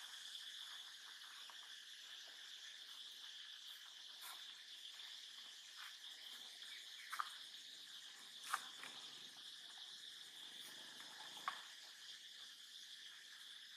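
Steady, high insect chorus from the forest, faint throughout. Three short, sharp sounds stand out over it: two a little past halfway and one near the end.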